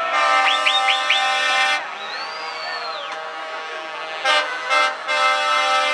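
Truck air horn sounding: one long blast of about a second and a half, then two short toots and another long blast near the end.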